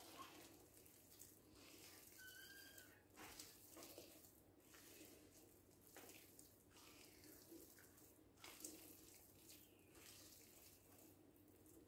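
Faint, soft squishing and rubbing of hands kneading sticky dough in a glazed earthenware dish, in irregular strokes. A brief high chirp about two and a half seconds in.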